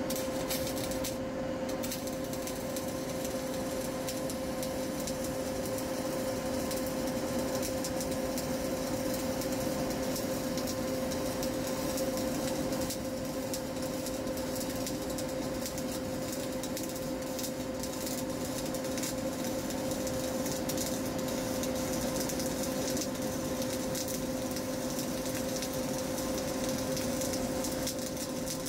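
Hyundai MIG/MAG/CO2 welding power source switched on and idling: a steady electrical hum with two held tones over an even rushing noise.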